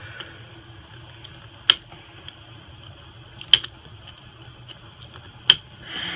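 Three sharp, light clicks about two seconds apart, from small tools or parts being handled during a phone teardown, over a steady low hum.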